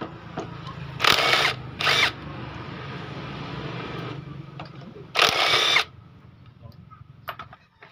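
Cordless impact wrench on the camshaft sprocket bolts: its motor whirs steadily, broken by short loud hammering bursts about a second in, two seconds in and again around five seconds in.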